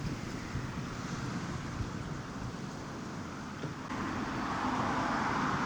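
Wind buffeting the microphone as a low, uneven rumble, with a steadier rushing hiss that grows louder about four seconds in.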